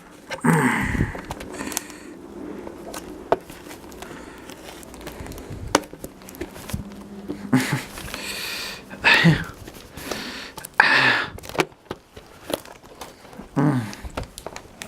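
Plastic wrapping and packing tape being crinkled, peeled and torn off a VHS cassette by hand. There are scattered clicks and rustles, with a few louder bursts of handling noise.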